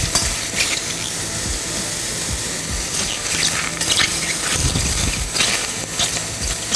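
Fresh wild mushrooms sizzling in a hot sauté pan with very little oil, while a metal spoon stirs them, with repeated short scrapes and clinks against the pan.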